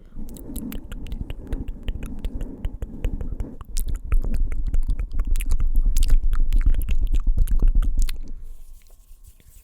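Fingers tapping rapidly on a microphone, a dense run of quick clicks with deep thumps, heaviest in the middle stretch and stopping about eight seconds in.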